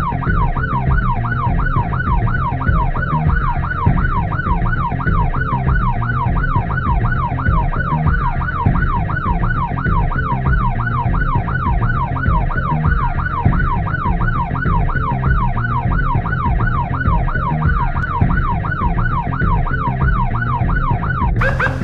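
Emergency vehicle siren in a fast yelp, sweeping up and down about two and a half times a second without a break, over a steady low rumble of road and engine. The sound changes abruptly just before the end.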